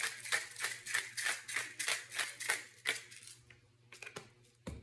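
Hand pepper mill being twisted, grinding pepper in short rasping strokes about three a second that stop about three seconds in, followed by a couple of light knocks near the end.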